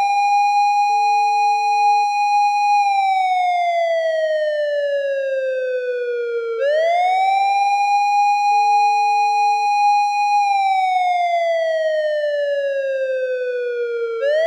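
Japanese police car siren wailing in long cycles. Each cycle jumps quickly up in pitch, holds steady for about three seconds, then slides slowly down over about four seconds. Two full cycles are heard, and the next rise begins right at the end.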